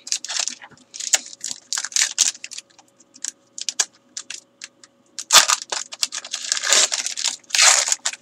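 Foil trading-card pack wrappers being torn open and crinkled by hand, in bursts of sharp crackling that grow denser and louder from about five seconds in.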